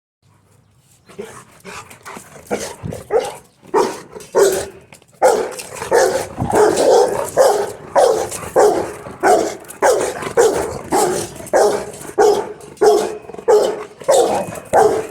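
Rottweiler barking over and over, about two barks a second. The barks start about a second in, softer at first, and get louder from around five seconds.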